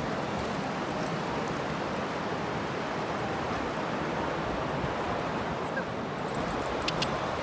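Ocean surf washing steadily, with a couple of faint clicks near the end.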